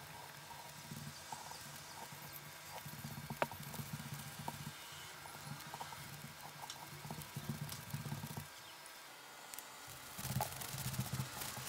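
Kitchen knife scoring a raw chicken breast on a plastic cutting board, the blade tapping the board in light, scattered knocks. Near the end, gloved hands rub salt and sugar into the meat with quick small rustles and clicks.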